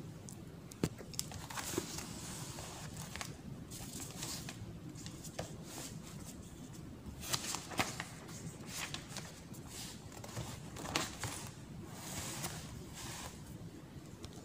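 Faint paper rustling and handling noise over an open notebook, with scattered small clicks and brief rustles against a steady low hiss.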